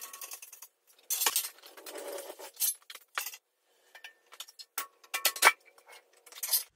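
Steel lifting chain clinking and rattling, with scattered sharp metal clanks, from a dozer fuel tank hung on an engine crane. The clinks come in irregular clusters, loudest about a second in and again about five seconds in.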